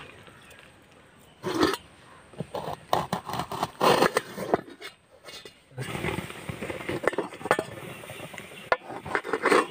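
Knife cutting an onion and a lime on an upturned stainless-steel bowl, the blade clicking and knocking against the metal in quick, irregular strokes. A short, louder burst of sound comes about one and a half seconds in.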